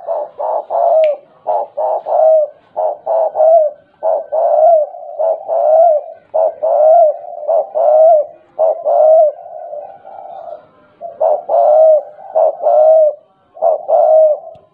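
Spotted dove cooing over and over, a long run of short arched coos grouped in quick clusters with brief pauses between: the stuttering 'gagap' style of coo.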